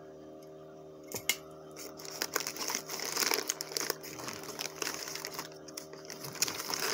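Plastic packaging crinkling and rustling with small clicks as small parts are handled, starting in earnest about two seconds in, over a steady low hum.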